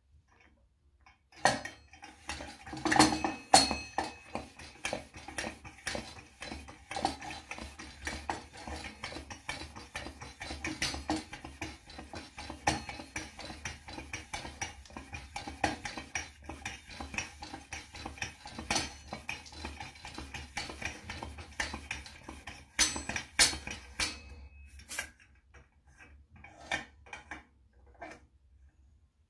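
The hand pump on a Coleman 533 petrol stove's fuel tank being worked, a long run of quick metallic clicks and clacks as the tank is pressurised. It starts about a second and a half in and stops a few seconds before the end, with a few scattered taps after.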